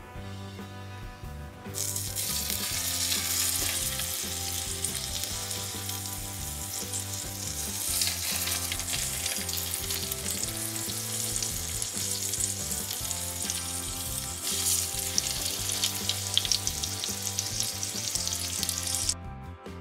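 Raw bacon strips sizzling and frying in a small frying pan. The sizzle starts suddenly about two seconds in as the strips go into the hot pan, keeps going steadily, and cuts off abruptly just before the end.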